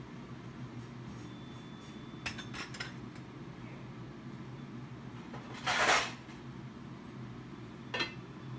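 Kitchen clatter of dishes and utensils: a few light clinks, a louder half-second rattle a little past the middle, and one more clink near the end, over a steady low hum.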